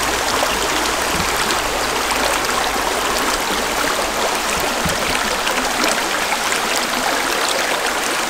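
Mountain stream running: a steady rush of water with no break.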